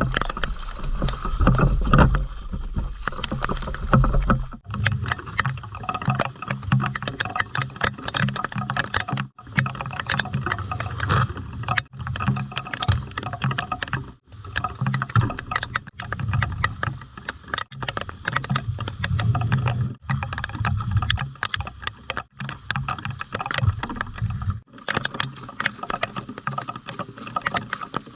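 Rain falling, heard as a dense patter of drop clicks, over a low rumble that swells and fades. The sound cuts out for a split second several times.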